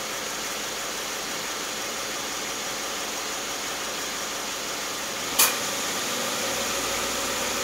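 Subaru Forester's flat-four boxer engine idling steadily with the hood open, kept running so the automatic transmission fluid level can be read on the dipstick. A single sharp click about five seconds in.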